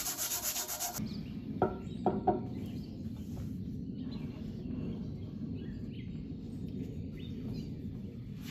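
Rhythmic rubbing that stops abruptly about a second in, then three knocks as a granite surface plate is set down on a steel lathe rail. A steady low rumble follows as the stone plate is rubbed over the dyed rail to spot its high points.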